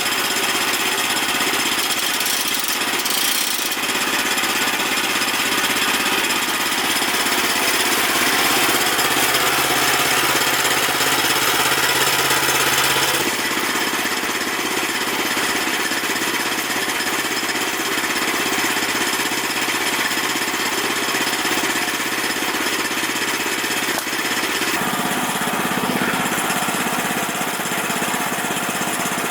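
Woodland Mills HM122 portable bandsaw sawmill with its 9.5 hp engine running under load, the band blade cutting through a dry cedar log. The steady, loud running shifts in tone twice, about a third of the way in and again near the end.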